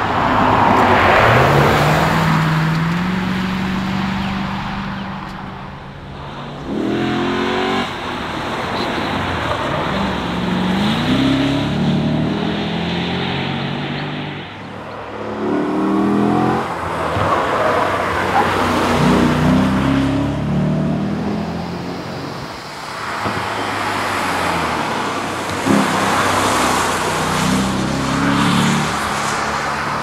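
Lexus IS F's 5.0-litre V8 driven hard past the roadside several times, its engine note climbing in pitch and dropping back again and again as it accelerates out of corners and changes gear, with tyre and road noise under it.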